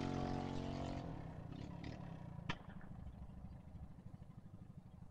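Coleman minibike's small four-stroke engine, fitted with a Slipstream billet flywheel, running at speed and fading into the distance; it dies out about a second in. After that there is only a faint low rumble and one sharp click about two and a half seconds in.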